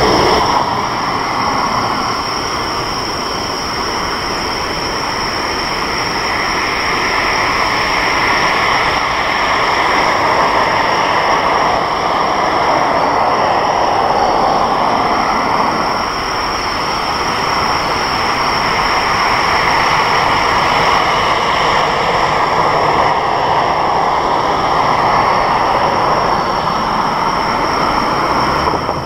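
Distant Airbus A330 jet engines running as the airliner taxis onto the runway: a steady rushing hiss with a thin high whine, swelling and easing a little.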